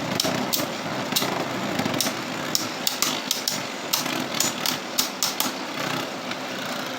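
Two Beyblade Burst spinning tops whirring in a plastic stadium, with a string of sharp clacks as they strike each other and the stadium wall.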